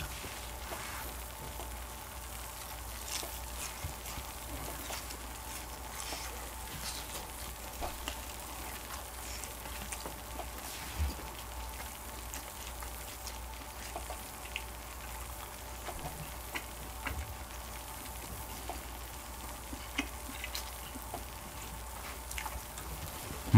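Faint, steady sizzling with scattered light crackles from grilling cheese and rice cake on an electric grill plate.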